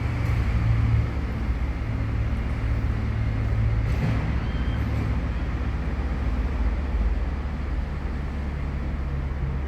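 Road traffic: a steady low engine rumble of vehicles, with a faint knock about four seconds in.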